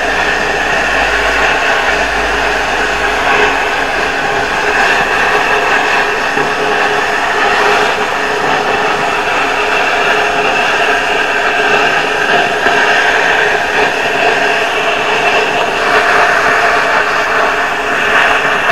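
PT-31 air plasma torch on a 40-amp cutter cutting through steel sheet. The plasma arc and air jet make a steady, continuous hiss throughout.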